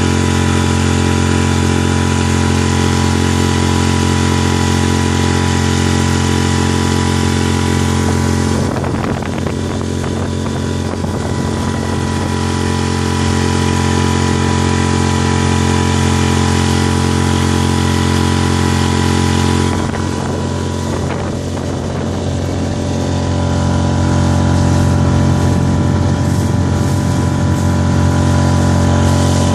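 Parsun F5 5 hp four-stroke outboard motor running at a steady high throttle, driving an inflatable boat at speed. From about nine to twenty seconds in, a rough rushing noise partly covers the engine's steady tone.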